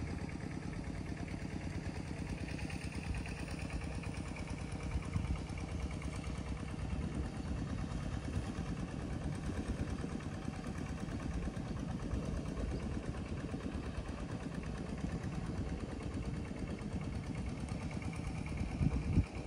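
A small engine running steadily at idle.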